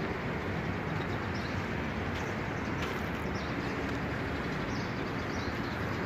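Steady outdoor ambient noise, an even rush with a few faint bird chirps.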